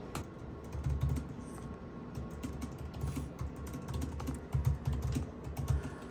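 Typing on a computer keyboard: irregular clicking keystrokes, with a few low thumps.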